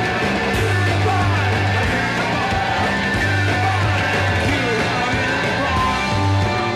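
Live rock band playing: electric guitars, bass guitar and drums, with a man singing into a microphone over them.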